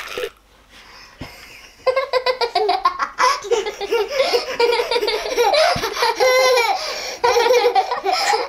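Two young girls, one of them a toddler, laughing together in quick repeated bursts, breaking out about two seconds in after a short quiet.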